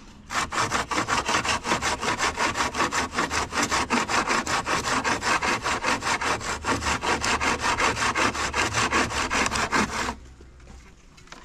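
Handsaw cutting through a wooden plank in quick, even back-and-forth strokes. The sawing stops about ten seconds in.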